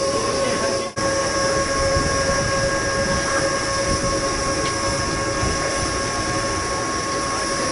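Steady hum and whine from parked electric trains' onboard equipment, a constant two-note tone over a noisy background. It drops out briefly about a second in.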